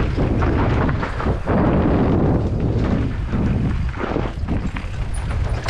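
Heavy wind buffeting on the microphone with a continuous rumble and frequent jolts and rattles from an off-road bike riding over a rough, rocky dirt trail.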